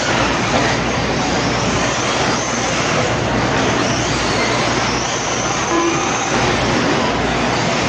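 1/8-scale electric truggies racing on a dirt track, with the high whine of their motors rising and falling over a steady loud rushing noise.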